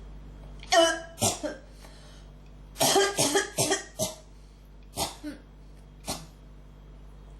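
A person in an uncontrollable coughing fit: a couple of harsh coughs about a second in, a rapid run of about five coughs in the middle, then a few single coughs trailing off.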